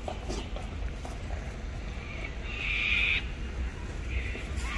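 Sulphur-crested cockatoos screeching: one harsh, noisy call of most of a second about halfway through, the loudest sound, then a shorter one near the end.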